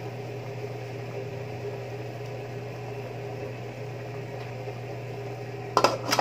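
Aluminium pot lid set back on a metal stockpot: two quick clanks near the end, over a steady low hum.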